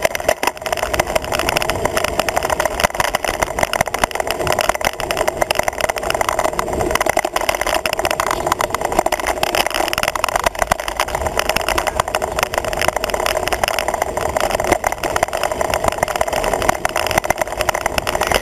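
Wind rushing over a camera mounted on a moving road bike, with steady road vibration and small rattles from the mount as it rolls along.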